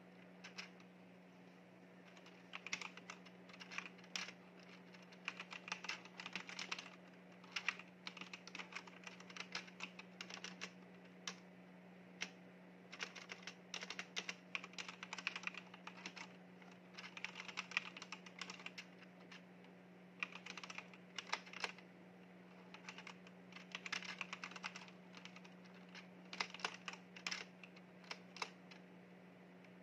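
Typing on a backlit Leaven mechanical keyboard: quick runs of key clicks in bursts of a few seconds, broken by short pauses, over a faint steady low hum.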